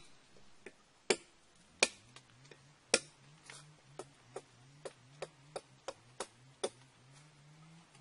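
Sharp taps of a knife chopping at a small piece of wood or bamboo on a tree branch, about fifteen strokes: irregular and loudest at first, then lighter at about three a second, stopping a little before the end.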